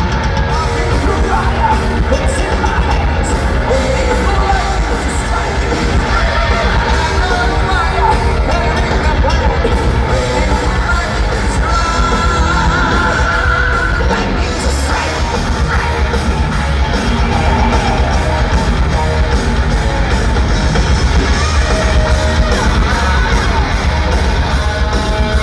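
Heavy metal band playing live at full volume: distorted electric guitars, bass and drums under high, shouted-sung lead vocals, with a long held high note around the middle.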